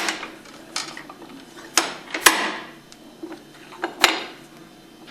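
Metal clinks and knocks as the steel bearing tool, cradle and pump parts are handled and set against each other while the pump's bearing is pressed out. There are a few separate sharp hits; the loudest, about two seconds in, rings briefly.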